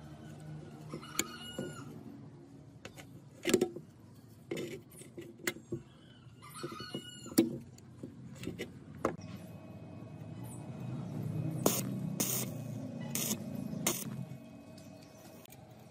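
Metal parts and tools being handled: scattered knocks and clinks, with two short squeaks about a second and six seconds in, and a run of louder clinks over a low rumble near the end.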